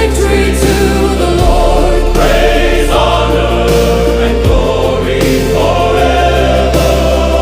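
Choral music: a choir singing held notes over a deep sustained bass that changes note about every second and a half.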